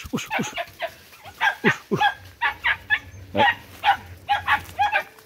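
Vietnamese native hunting dogs barking in quick runs of short, sharp barks with brief pauses, baying while they dig after rats in a burrow.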